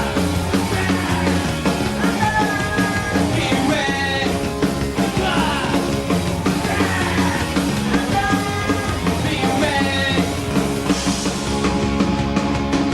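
Loud rock music in a punk style, with a voice singing over the band.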